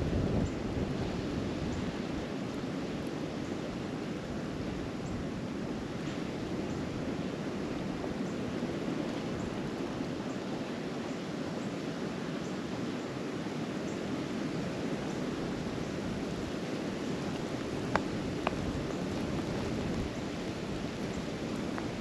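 Steady wind of a snowstorm rushing through the woods and buffeting the microphone. Near the end there are two small sharp clicks about half a second apart.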